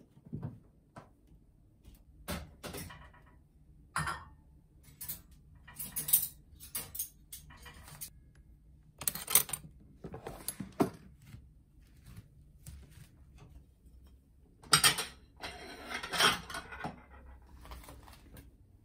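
Household clatter from a kitchen drawer: metal cutlery and utensils clinking and rattling as they are handled, mixed with knocks of the drawer. It comes as a string of separate clinks and knocks, a few ringing briefly, with a denser rattle about fifteen seconds in.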